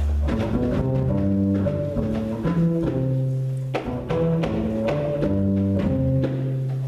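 Live jazz group playing: a low bass line under sustained, shifting chords, with occasional drum strokes.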